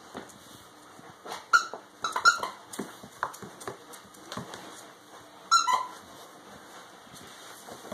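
Young puppy giving a few short, high-pitched yips and little barks while tugging at a toy during play, the loudest about one and a half, two and a quarter and five and a half seconds in.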